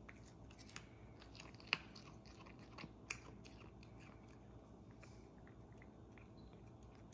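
A cat chewing raw quail: faint, irregular wet clicks and crunches, with a couple of sharper crunches in the first half.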